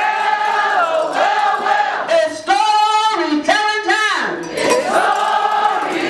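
A woman singing into a microphone, holding long, slightly wavering notes with short breaths between phrases.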